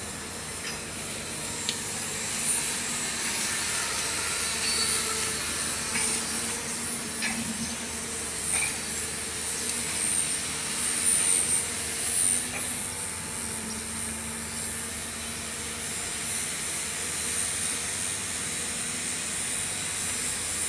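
A steady engine-like hum with a hiss on top, and a few light clicks of parts being handled.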